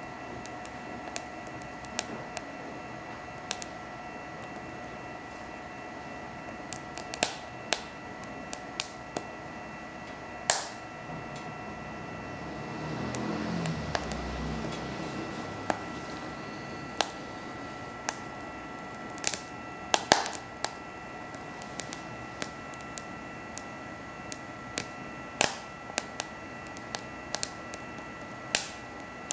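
Split wood crackling and popping as it burns in a BioLite wood stove: irregular sharp snaps, a few of them loud, over the steady whine of the stove's small built-in fan. A low rush swells and fades about halfway through.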